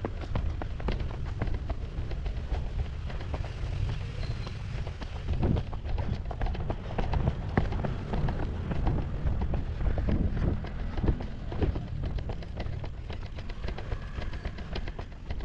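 Running footsteps slapping on pavement in quick succession, over a low rumble of wind buffeting the microphone of a camera carried by a runner.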